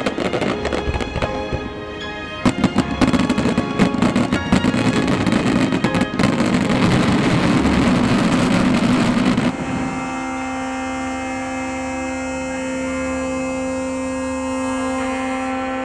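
Fireworks going off, rapid bangs and crackling in quick succession, mixed with background music. About ten seconds in the bangs stop and only the music remains, as steady held notes.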